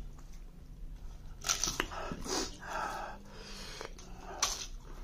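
Close-up eating sounds: wet chewing and lip smacks, with fingers working rice and chicken curry on a metal plate. A few sharp smacks stand out, about one and a half seconds in and again near four and a half seconds.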